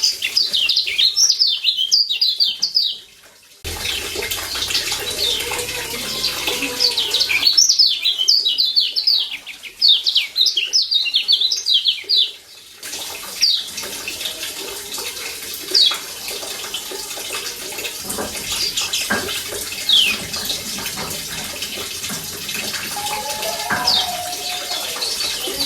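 Lombok kecial kuning (yellow white-eye) giving its 'ciak' calls: rapid runs of short, high, falling chirps in two bursts of a few seconds, then single chirps spaced a second or more apart, over a steady hiss. The background changes abruptly a few times, as at edit cuts.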